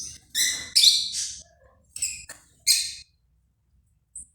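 A bird chirping and squawking in short, high calls, about six in quick succession, then one brief call near the end, over a faint low hum.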